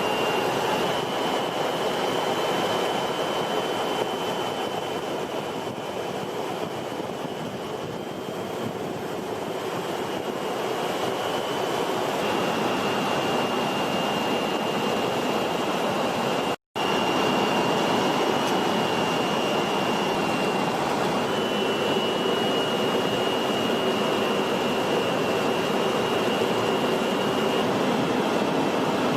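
Steady jet aircraft engine noise with a thin high whine over it. It cuts out for an instant past the middle.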